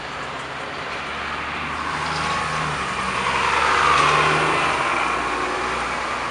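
Close passing traffic. A city bus's engine runs as it pulls past, with steps in pitch, and a car passing close swells the engine and tyre noise to its loudest about four seconds in before it fades.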